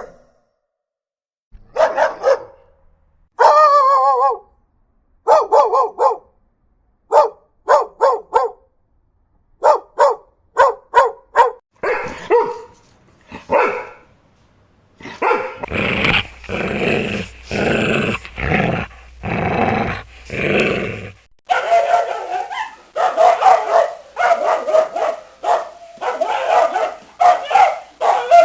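Dogs barking in a string of separate recordings with short silent gaps between them: short barks in twos and threes, one drawn-out wavering call about four seconds in, then deep, heavy barks around the middle and fast, continuous barking near the end.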